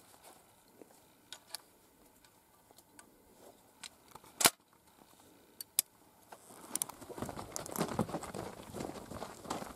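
Scattered small clicks of gun handling, then a single sharp crack about four and a half seconds in, the loudest sound, as a revolver is fired. From about seven seconds in, boots run over dry, gravelly dirt in quick irregular crunching steps.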